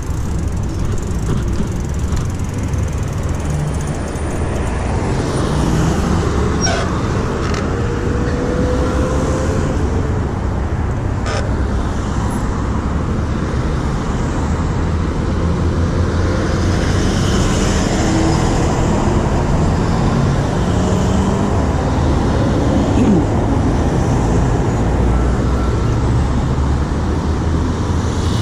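Road traffic at a city intersection: cars and a van driving past, a steady rumble of engines and tyres. Two short clicks stand out about a quarter and about two-fifths of the way in.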